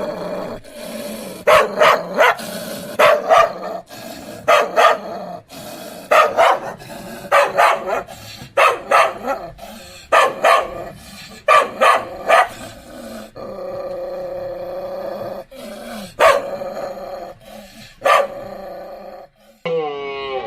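Dog barking, loud short barks in quick clusters of two or three about every second or so, with one longer held call about two-thirds of the way through.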